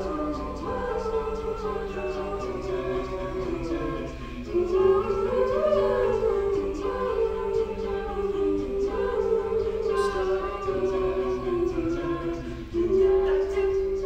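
A cappella group of mixed voices singing sustained chords without clear words. Vocal percussion ticks along evenly at about three beats a second.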